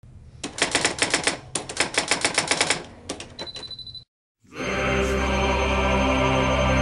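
Typewriter sound effect: rapid key clacks for about three seconds, ending in a short bell ding. After a brief silence, droning music with sustained low tones begins.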